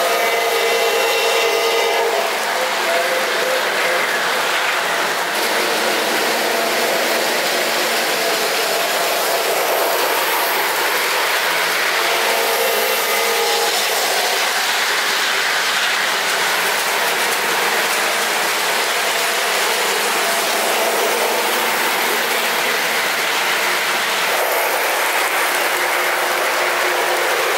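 O-gauge Lionel LionChief GE ET44 Tier 4 locomotive and double-stack well cars running around the track: a steady rumble of small wheels on rail mixed with the engine's onboard diesel sound. A pitched horn blast from its onboard sound system comes right at the start and again about 12 seconds in.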